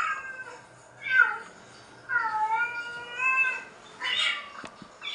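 A cat meowing repeatedly, about five meows in a row, the middle one long and wavering in pitch. A single sharp click comes shortly before the end.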